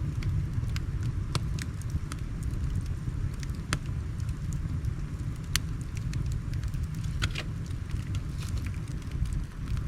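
Wood fire crackling, with sharp irregular pops about once a second, over the steady low rush of a river.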